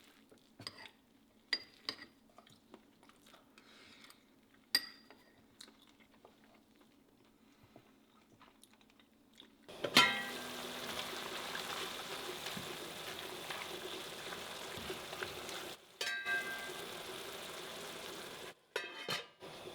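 Kitchen work sounds: a few light clicks and taps of utensils, then a steady hiss with a low hum sets in suddenly about halfway through, cutting out briefly twice near the end.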